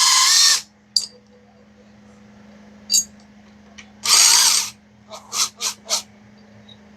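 A handheld power tool, run like a drill or power ratchet, spins out bolts in two short bursts of about half a second each: one at the start and one about four seconds in. Between the bursts come light metallic clicks of tools and bolts being handled.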